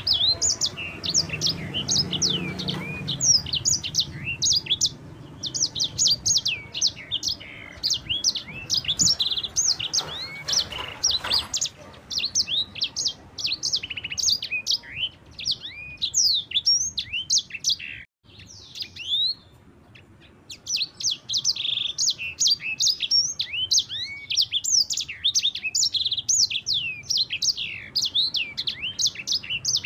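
A sanger songbird singing a fast, continuous rolling song of short sweeping chirps, with a brief pause a little past the middle.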